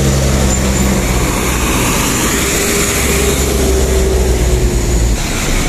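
Engine of a heavy vehicle passing close by: a loud, deep, steady drone with a faint slowly falling whine, dropping away about five seconds in.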